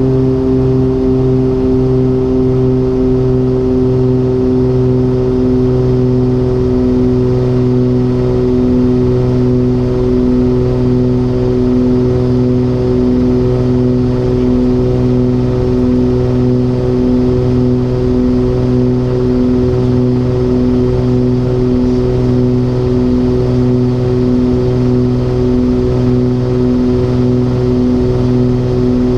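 The twin Continental 520 piston engines (325 hp each) of a Cessna 414 Chancellor running steadily at power, a deep propeller drone with a slow, even throb where the two engines beat against each other.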